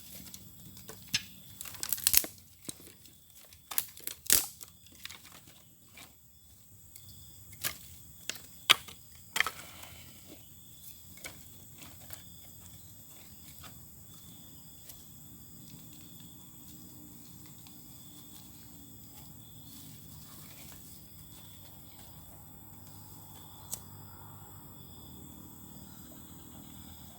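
Irregular sharp clicks and knocks with some crinkling for about the first ten seconds, then a faint steady background hiss with a few thin high steady tones and one more click near the end.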